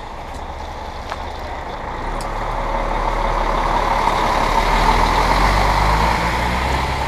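A coach pulling away close by, its engine and tyre noise growing louder over the first five seconds and then holding steady, with a low engine hum coming in about two seconds in.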